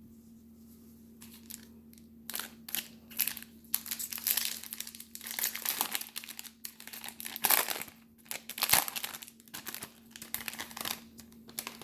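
Foil trading-card pack wrapper being crinkled and torn open by hand: irregular rustling and tearing that starts about a second in and stops just before the end.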